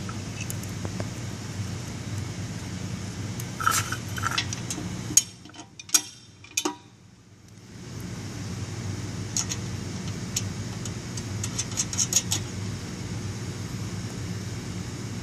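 Small metal parts clinking and rattling as nuts are taken off and a caster-wheel bracket is handled and fitted, heard as scattered sharp clicks over a steady low hum. The hum drops out briefly about five seconds in.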